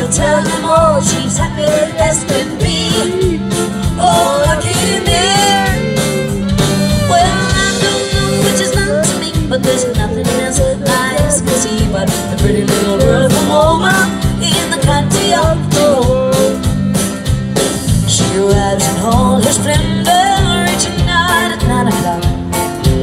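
Live country band playing with a steady drum beat: fiddle, acoustic and electric guitars and drums, with a wavering melody line over them.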